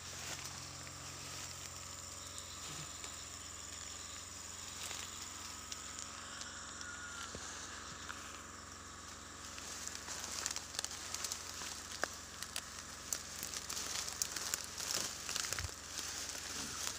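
Ferns and undergrowth rustling and crackling as people push through them on foot, the crackles coming thick and fast from about ten seconds in.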